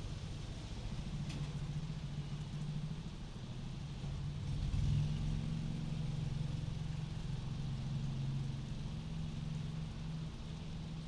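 A car engine outside, heard from inside a house as a low, muffled hum that grows loudest about five seconds in, over a faint hiss of rain.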